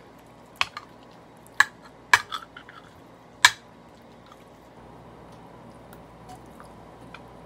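An eating utensil clicking against a soup bowl, four sharp clicks spread over the first few seconds, with faint chewing between.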